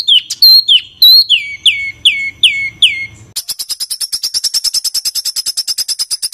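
Recorded songbird song: a run of loud, downward-slurred whistles, about three a second, then, about three seconds in, an abrupt switch to a fast, harsh, high rattling trill of evenly spaced notes, about ten a second.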